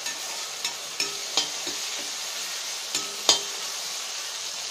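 Tomatoes, onions and green chillies sizzling in hot oil in an iron kadai while a spatula stirs and presses the mixture down, knocking and scraping against the pan. There are about eight sharp knocks, the loudest about three seconds in.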